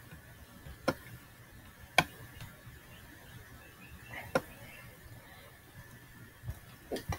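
A few sharp, short clicks, about a second apart, then a softer sound a couple of seconds later, over a faint steady hum: clicks of the input while drawing on a computer.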